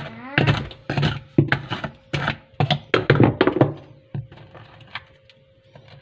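A screwdriver knocking and scraping in quick succession against the drain cover in the bottom of a washing-machine tub, prying out debris from a clogged drain. The knocking stops about four seconds in.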